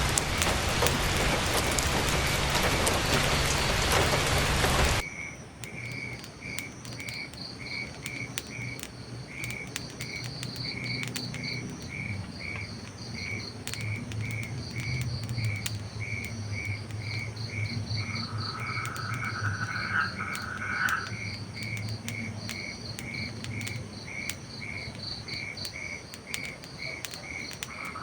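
Heavy rain for about five seconds, then it cuts off abruptly to a night chorus: crickets chirping in a steady, regular rhythm, with a frog trilling for a few seconds past the middle and scattered faint clicks.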